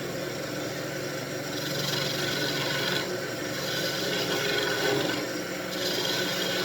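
Wood lathe running steadily while a cutting tool scrapes into the thin tip of a spinning wooden wand, in three passes of about a second and a half each, cutting the tip down until it breaks off.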